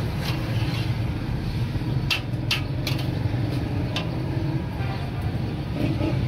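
A perforated steel skimmer ladle scrapes and clinks against a large steel karahi while turning damp boondi, with about four sharp clinks between two and four seconds in, over a steady low hum.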